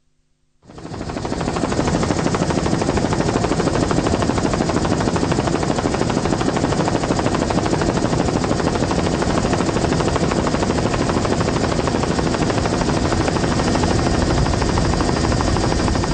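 Helicopter running steadily, its rotor chopping in a fast even beat over the engine. It cuts in suddenly just under a second in.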